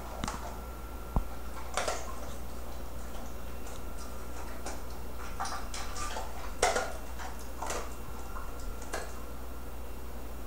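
Scattered light clicks and taps from a dog moving about on a tiled floor, with a sharp click about a second in, over a faint steady low hum.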